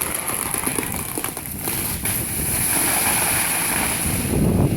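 Aftermath of a large albizia tree crashing down: scattered cracks of breaking branches and settling debris. Near the end a chainsaw starts running.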